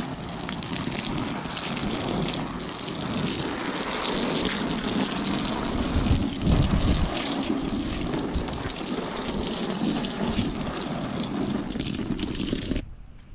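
Garden hose spraying a stream of water onto a canvas sheet on grass: a steady, splattering hiss that stops abruptly near the end.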